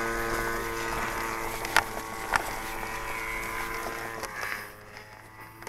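RC plane's E-flite 160 brushless electric motor, on a 12-cell pack and 150 A ESC, whining steadily at low throttle. The whine drops out a little past four seconds and comes back at a lower pitch near the end; two short clicks come near the middle.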